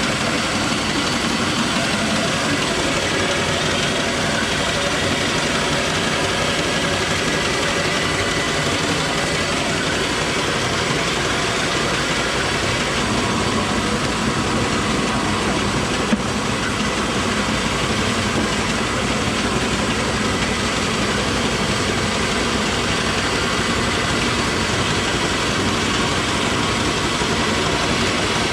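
An 80-year-old bulgur-cracking mill running steadily while grinding wheat, a continuous mechanical din that holds the same level throughout. A single sharp click about halfway through.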